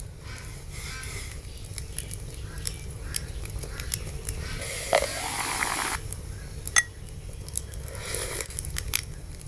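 Soundtrack of an AI-generated miniature cooking clip playing back: small kitchen clicks and taps over a steady low rumble, with a hiss lasting about a second roughly five seconds in and a softer one near the end.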